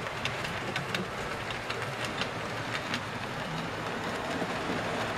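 Model railway locomotive and its train running along the track: a steady small-motor whir under an irregular patter of light clicks as the wheels pass over rail joints and points.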